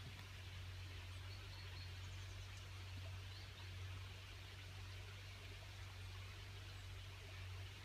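Faint, steady rush of a shallow stream running across a road ford, with a couple of faint bird chirps in the first few seconds.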